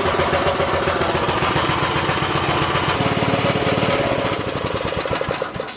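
Briggs & Stratton 5 hp flathead single-cylinder engine running with a steady beat. Its firing pattern changes about three seconds in, and it cuts out just before the end. The owner puts its stumbling under revs down to a faulty diaphragm pump in the pulse-jet carburettor, which leaves the small fuel bowl short of fuel.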